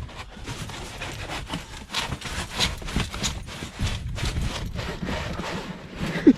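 Cardboard and packing material rubbing and scraping in a run of irregular strokes as the new water heater is worked out of its box.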